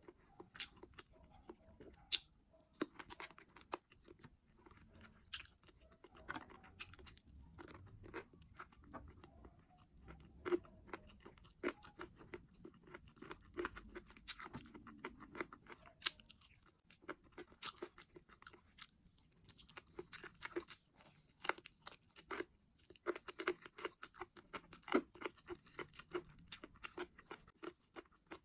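A person chewing food close to the microphone: steady, irregular chewing with many sharp crunches, wet mouth clicks and smacks.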